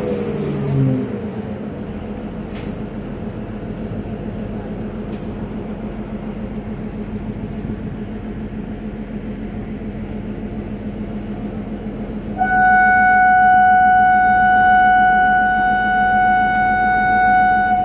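Kalka–Shimla narrow-gauge toy train standing with its locomotive engine running in a steady hum. About three-quarters of the way through, a loud, long horn blast on one steady pitch sounds for about five seconds.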